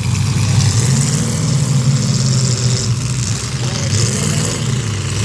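Several demolition derby cars' engines running together in a loud, steady drone, with some revving rising and falling over it.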